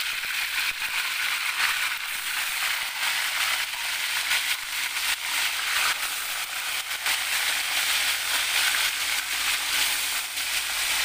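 Pieces of snakehead fish deep-frying in hot oil in a wok, a steady sizzle with many crackles and pops all through.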